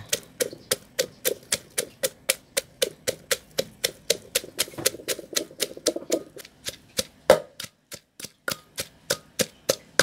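Wooden pestle pounding fresh chillies, garlic, shallots and lemongrass in a mortar: steady knocks, about three a second, with one harder strike after about seven seconds. The herbs are being pounded into a coarse paste.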